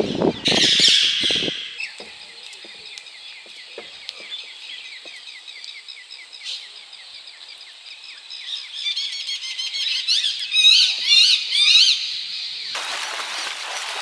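Small birds chirping in rapid, repeated, overlapping calls, growing louder and busier in the last few seconds. Near the end it cuts abruptly to a steady rush of flowing river water.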